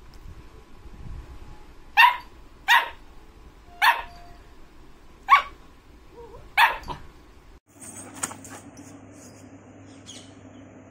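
Yellow Labrador puppy barking: five short, sharp, high barks, roughly one every second or so in the first two-thirds.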